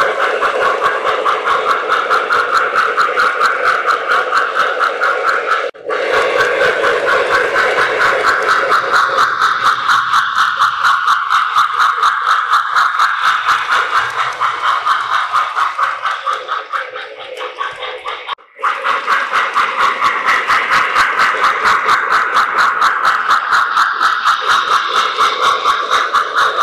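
O-gauge model train running on the track: a steady hum with a fast, even pulsing rhythm, breaking off for a moment twice.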